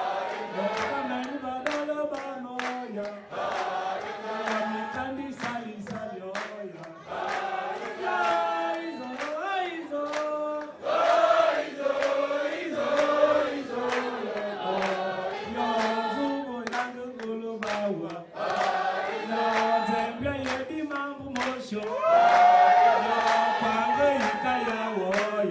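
A man sings into a handheld microphone and leads a crowd that sings with him in chorus, with hand-clapping all along.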